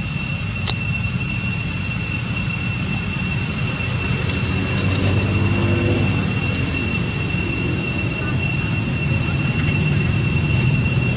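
Steady, high-pitched insect drone over a low background rumble.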